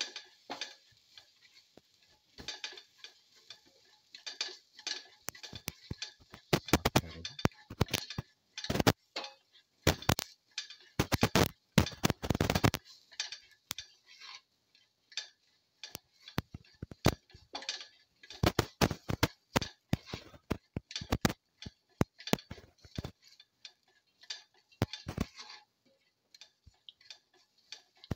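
White slotted spatula knocking and scraping against a stainless steel pan as sliced onions, green chillies and spices are stirred: irregular runs of sharp clicks with short pauses, busiest in the middle.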